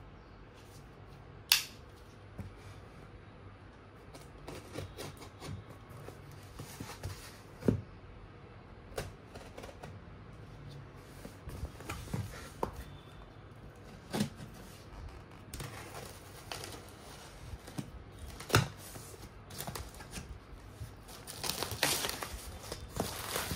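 Packaging being handled and opened by hand: scattered clicks and knocks, the sharpest about a second and a half in, with rustling near the end.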